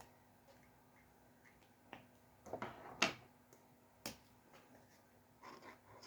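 Small objects handled at a drawing desk: a few sharp clicks and taps, the loudest about three seconds in, with short rustles of handling between them.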